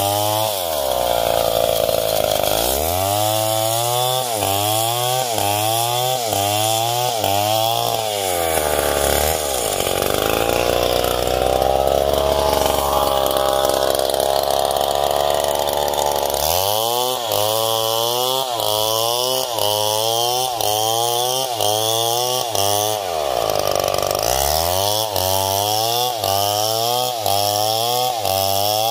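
Stihl MS070 two-stroke chainsaw ripping a coconut palm trunk lengthwise into planks. The engine's pitch wavers up and down about one and a half times a second, holding steadier and higher for several seconds in the middle.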